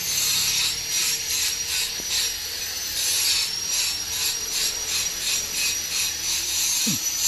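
Rhythmic back-and-forth rasping strokes of a hand tool, about three a second, like hand sawing or filing, over a faint steady high whine.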